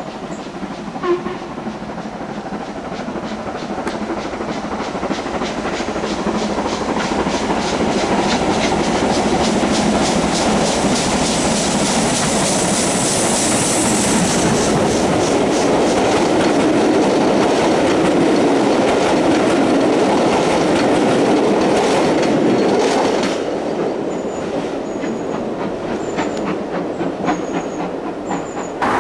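Steam locomotive hauling a passenger train past at close range: rapid, evenly spaced exhaust beats and wheel clatter build up, are loudest as it passes, and drop after about 23 s to the rolling of the coaches.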